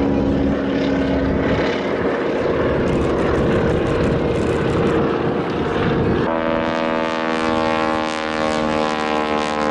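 Boeing Stearman biplanes' radial engines and propellers droning steadily in flight. About six seconds in the engine note shifts suddenly to a different, fuller pitch.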